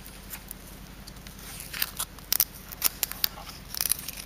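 Cuttlefish-bone casting mould being handled and bound shut, giving scratchy clicks and crackles, sparse at first and coming thick and fast from about halfway through.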